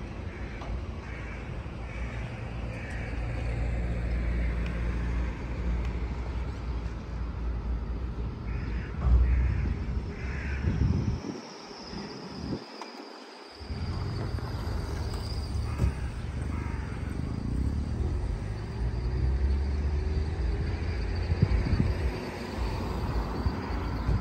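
Outdoor city street ambience: a steady low rumble with bird calls over it, a few near the start and a louder cluster about ten seconds in.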